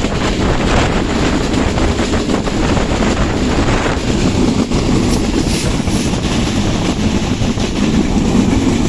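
Passenger train running at speed: a steady low rumble with constant rattling from the wheels and carriage. The hiss above it eases off about four seconds in.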